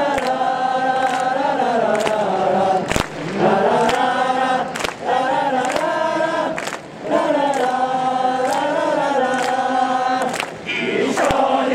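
Stadium crowd of football supporters singing a victory song together in long held phrases, with a sharp beat about once a second.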